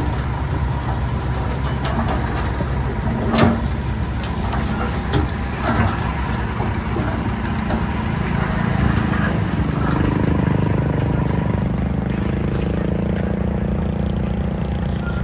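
Diesel engines of a Komatsu D31P bulldozer and dump trucks running steadily while moving fill soil, with a few metallic clanks. About ten seconds in, an engine note builds and holds.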